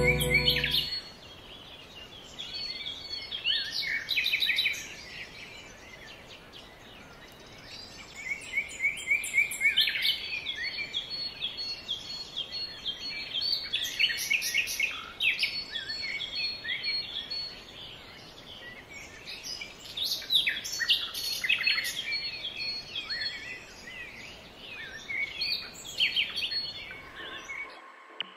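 Songbirds singing and chirping in repeated bursts of quick high phrases, with short gaps between them, over a faint steady background hiss. The sound cuts off just before the end.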